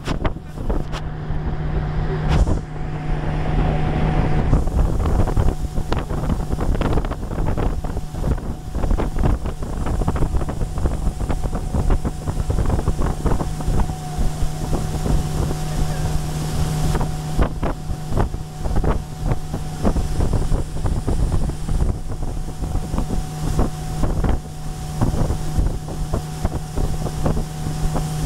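Motorboat engine running steadily under way, a constant hum with a steady higher tone over it, along with frequent short knocks of the hull on the water and wind buffeting the microphone.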